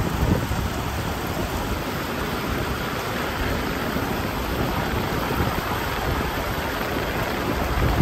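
Steady rain falling: an even hiss with a low rumble underneath.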